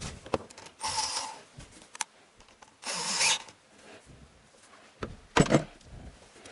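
Bosch cordless drill-driver running twice in short half-second bursts, about a second in and about three seconds in, as it undoes a hose clamp on a heater hose. A sharp knock near the end.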